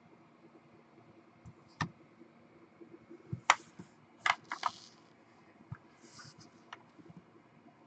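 Hard plastic trading-card holders clicking and clacking as they are set down and shuffled on a table, with a few short sliding scrapes. A handful of sharp clicks come between about two and five seconds in, the loudest about three and a half seconds in, then a few fainter ones.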